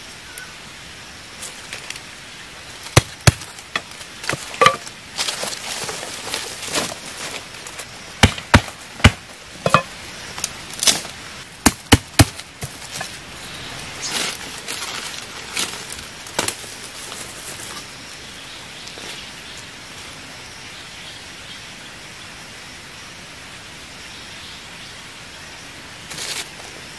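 A run of sharp knocks as a blade chops and trims green wooden sticks, some strokes in quick pairs, bunched in the first half. After that come scuffling in dry leaves and a steady background hiss.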